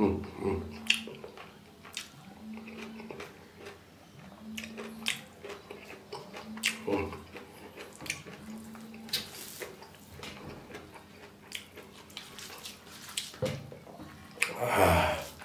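Close-up eating sounds: chewing and wet mouth smacks, with fingers mixing rice on a stainless steel plate, as irregular small clicks and squishes. A louder, noisier smack near the end.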